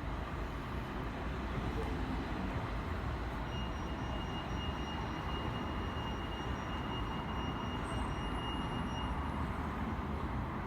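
Steady city street noise of passing traffic, a continuous low rumble. A faint high whine holds steady for several seconds in the middle.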